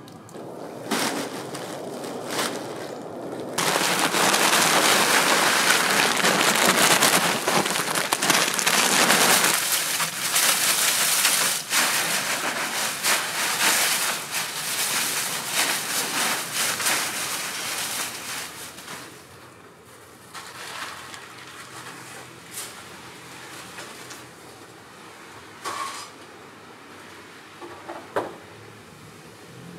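Dry leaves and compost rustling and crackling as they are turned by a gloved hand. The dense crackle starts a few seconds in and fades past the middle, leaving scattered faint clicks.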